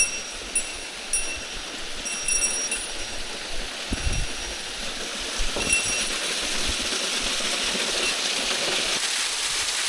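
Waterfall water rushing as a steady hiss that grows a little over the last few seconds, with light metallic jingles, several in the first three seconds and a couple near six seconds, and a dull thump about four seconds in.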